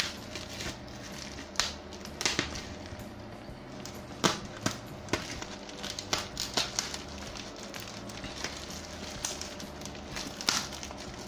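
Plastic parcel wrapping being pulled and torn open by hand: irregular crinkling with sharp crackles and pops scattered through.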